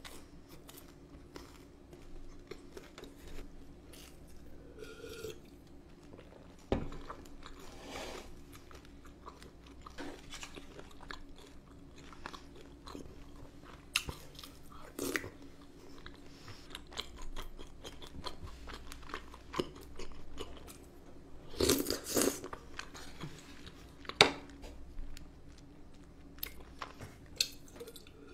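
Close-miked chewing and mouth sounds of a person eating cream pasta, with scattered soft clicks and wet smacks at an irregular pace and a few louder ones.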